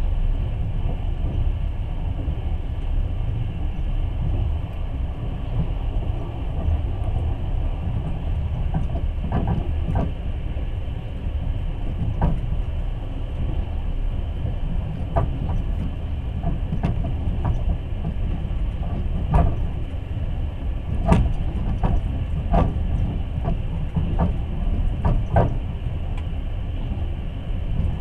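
Long-distance passenger train running on the rails, heard from inside the carriage: a steady low rumble with scattered sharp clicks and knocks of the wheels on the track, more frequent from about nine seconds in.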